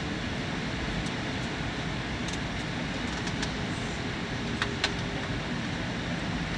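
Steady cabin noise of an Air Canada Airbus A320 in flight: engines and rushing air heard through the window seat, with a few small clicks about halfway through.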